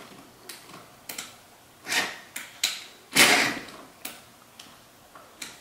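Hand-tightening a lag bolt into a TV wall-mount bracket after the drill stalled: scattered metal clicks and scrapes, with two louder scraping rustles about two and three seconds in.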